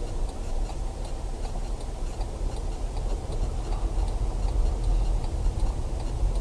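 A car driving, heard from inside the cabin: a steady low engine and road rumble, with a faint, evenly spaced ticking.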